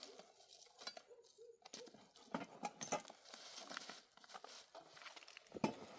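Scattered small clicks and rustling, as of things being handled.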